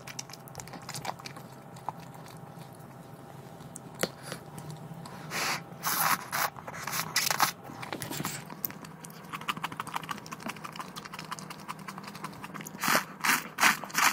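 Instant ramen noodles slurped and chewed close to the microphone: a few loud slurps about five to seven seconds in and a quick run of slurps near the end, with quieter chewing between.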